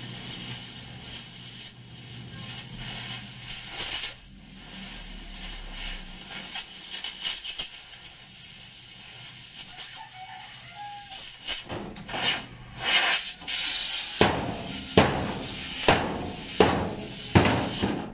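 Gas cutting torch hissing steadily as it cuts through a rusty steel floor plate. In the last few seconds come about five loud, sharp hammer blows on the steel plate, each under a second apart.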